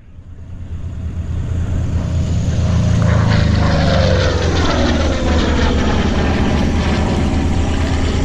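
Piston-engine propeller aircraft making a low pass: its engine and propeller drone grows louder over the first few seconds, then the pitch falls as it goes by.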